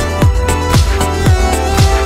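Bass-boosted electronic dance music: a deep kick drum on each beat, about two a second, over a heavy, constant low bass and sustained synth notes.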